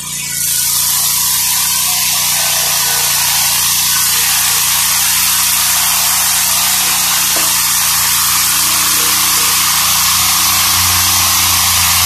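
Homemade Lucas-style swing-blade circular sawmill cutting along a log: the engine runs under load and the blade gives a loud, steady hissing rasp through the wood, starting about half a second in. The low engine drone grows stronger near the end.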